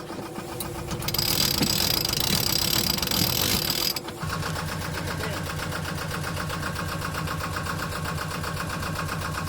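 A boat's engine running steadily with an even pulse. A loud hiss lies over it from about a second in and cuts off suddenly about four seconds in.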